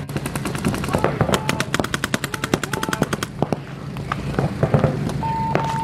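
Paintball markers firing in rapid strings of about a dozen shots a second, thinning to scattered single shots after about three seconds. A steady high tone comes in near the end.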